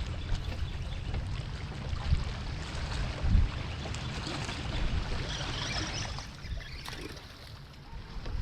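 Water lapping against a boat on open water, with wind rumbling on the microphone; a single low thump about three seconds in.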